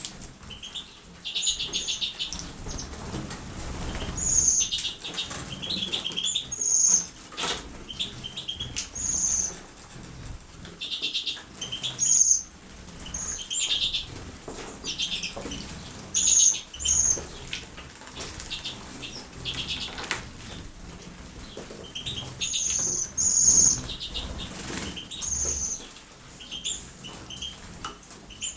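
Small pet birds bathing in water, fluttering their wings and splashing, with short high chirps repeating every second or so.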